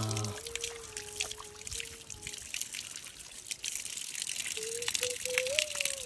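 Water trickling and splashing steadily from a newly built stone spring spout, with many small drips and spatters.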